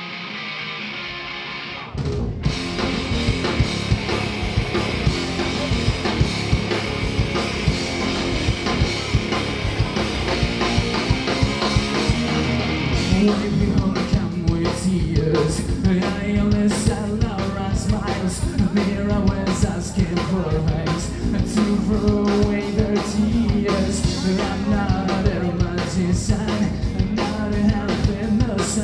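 Live rock band playing electric guitars, bass and drum kit. After a muffled first two seconds, the full band cuts in suddenly, and a male lead singer comes in about halfway through.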